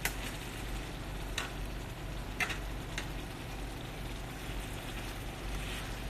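Beef enoki rolls frying in a pan: a steady sizzle with a few sharp clicks in the first half.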